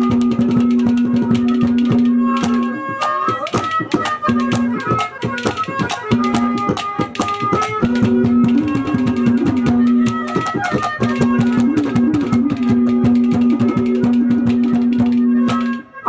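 Live Haryanvi ragni instrumental interlude: a held reed drone with a melody played over it in phrases, driven by fast hand-drum strokes and a jingling rattle. The music cuts off just before the end.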